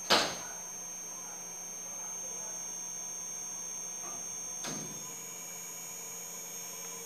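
Fingertip taps on the Siemens KTP900 Basic touchscreen keypad: a sharp loud knock just after the start and a lighter one a little before five seconds in. Both sit over a steady electrical hum and a faint high whine.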